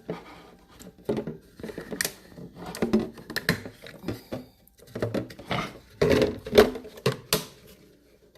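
Irregular clicks, taps and knocks of kitchen containers and utensils being handled, loudest about six seconds in.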